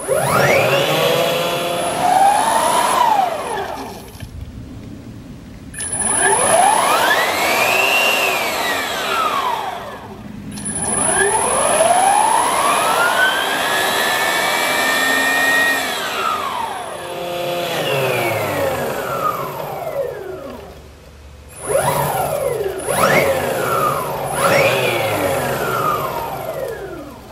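TECO electric scooter's 600 W motor and belt drive spinning up and winding down about five times, its whine rising and then falling in pitch each time. It runs smoothly with no abnormal noise, the drivetrain having just been repaired.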